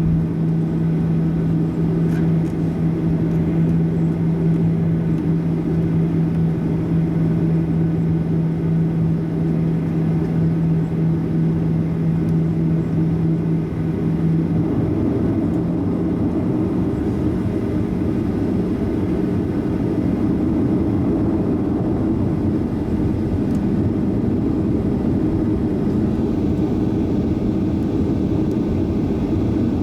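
Jet airliner cabin noise while taxiing: a steady engine and airflow rumble with a held hum that drops out about halfway, after which the rumble grows a little fuller.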